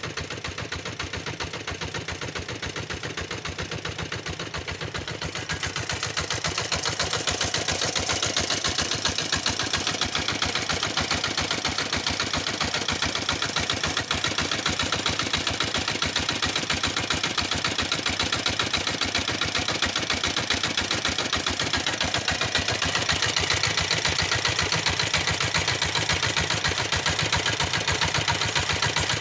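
Small single-cylinder engine of a walk-behind power tiller running steadily at a fast, even firing beat while it drives a centrifugal water pump. It gets louder about six seconds in.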